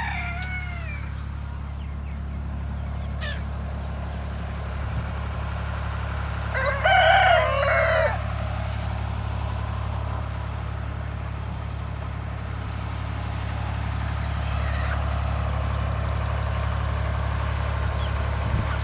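A rooster crows once, loudly, for about a second and a half, some seven seconds in, over a flock of chickens with a shorter call at the start. A steady low engine hum runs underneath and grows a little louder near the end.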